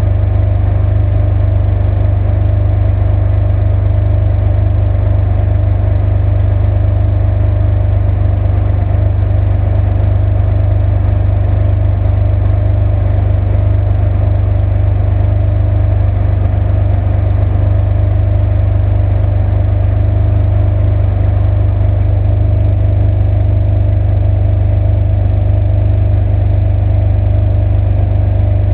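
Ferrari 599 GTB Fiorano's 6.0-litre V12 idling, a steady deep tone that holds its pitch without any revving.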